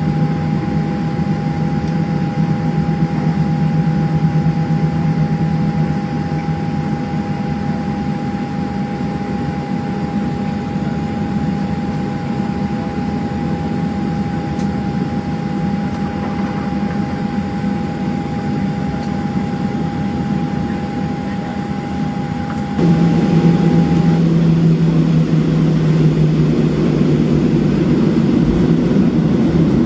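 Cabin noise aboard a Boeing 737-700 taxiing, its CFM56-7 engines at idle: a steady hum with a high held tone over it. The noise steps up abruptly near the end and the high tone drops away.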